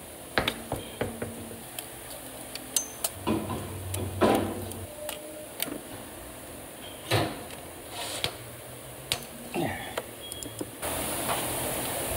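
Irregular metallic clicks, clinks and knocks of a wrench and hand tools against engine parts as the starter's mounting bolts are worked loose. A steady hiss comes in near the end.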